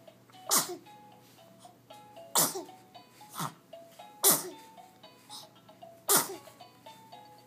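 A run of four sharp sneezes about two seconds apart, each falling in pitch as it ends, with a smaller one between the second and third. Soft background music plays underneath.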